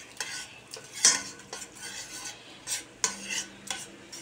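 Spoon stirring chopped onions and tomato paste frying in oil in a stainless steel pot, scraping against the pot in irregular strokes, with a light sizzle beneath. The paste is being fried into the onions.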